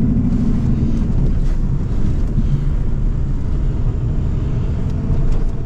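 Vehicle engine and road noise heard from inside the cabin while driving, a steady low rumble.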